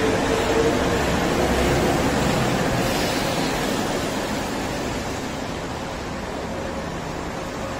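Mexico City Metro Line 8 rubber-tyred train pulling out of the station and moving away, its running noise a steady rush that slowly fades.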